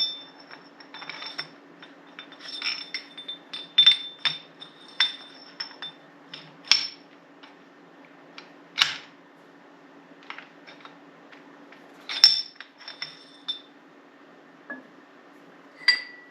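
Hard metal parts being handled: a string of irregular clinks and taps with short bright rings, over a steady low machine hum.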